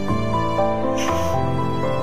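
Background instrumental music with held notes that change pitch every half second or so, and a brief hiss about a second in.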